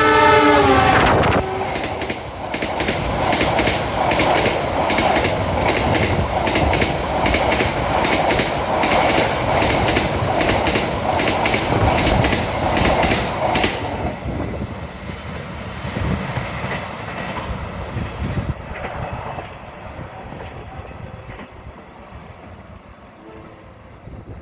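A train horn sounding as a fast train passes, its pitch dropping, followed by the train rushing by with rapid, regular clacking of wheels over rail joints. The clatter stops suddenly about two-thirds of the way through and the rumble fades away as the train recedes.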